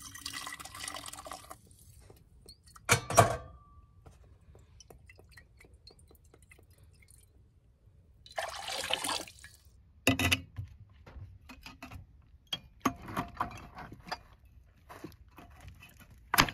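Water sloshing inside a glass carafe and pouring into a sink, twice, with a loud knock of glass about three seconds in. Smaller clinks and knocks of glassware being handled near the end.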